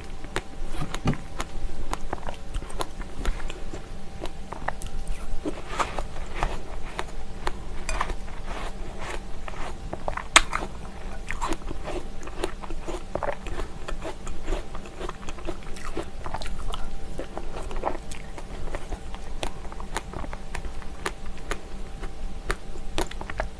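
Close-miked eating of plain yogurt with strawberries and apple: soft biting and chewing made of many small wet clicks and smacks. One sharper click comes about ten seconds in.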